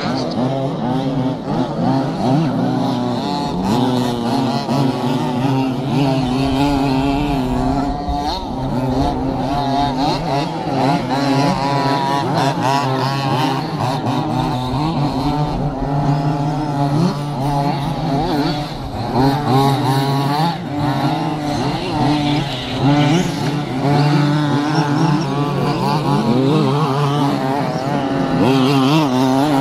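Small two-stroke petrol engines of several 1/5-scale RC off-road trucks racing together, each revving up and down in pitch as they accelerate and lift off, their buzzing overlapping.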